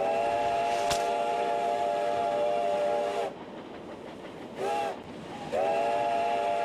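Steam locomotive whistle sounding several tones at once: a long blast of about three seconds, a short toot, then another long blast starting about two-thirds in, over a steady hiss.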